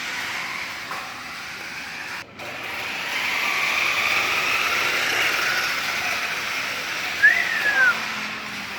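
Small electric motors and plastic gears of toy RC cars whirring as they run, louder from about three seconds in, with a short squeak that rises and falls about seven seconds in.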